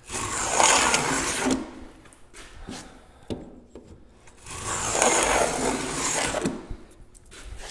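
Metal plow plane shaving along the grain of a board in two long strokes, each a rough, hissing cut lasting about two seconds, with a few light clicks between them as the plane is drawn back. The plane is working the joint down toward its gauge line.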